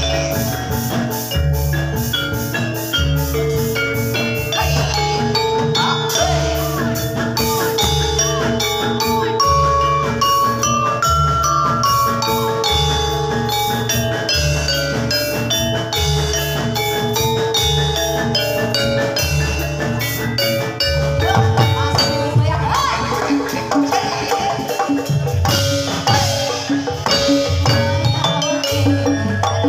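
Live Javanese gamelan playing jathilan music: bronze metallophones strike quick melodic patterns over a steady, repeating drum rhythm.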